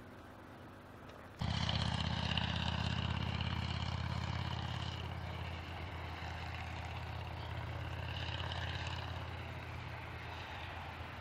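A steady engine drone with a low hum, coming in suddenly about a second and a half in and holding on, swelling slightly near the end.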